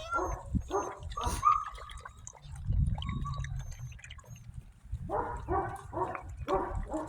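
Six-week-old puppies yipping, a quick run of short yips at the start and another run about five seconds in.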